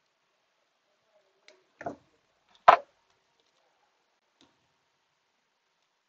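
A few short clicks and knocks of small objects being handled and set down on a repair workbench, the loudest a sharp knock about three seconds in.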